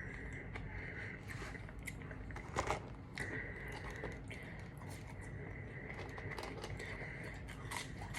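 A person eating KFC food close to the microphone: scattered chewing and biting clicks, with a louder crunchy bite about two and a half seconds in, over a steady high-pitched whine.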